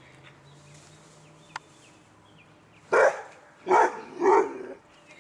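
Dog barking close by: three short, loud barks in quick succession, about three seconds in.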